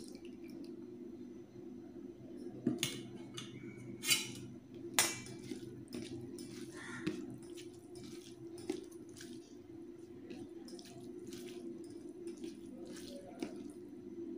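Thin chicken curry poured from a stainless-steel bowl onto rice, then steel dishes clinking sharply three times, a few seconds in. After that comes the soft, wet squish of rice and curry being mixed by hand, over a steady low hum.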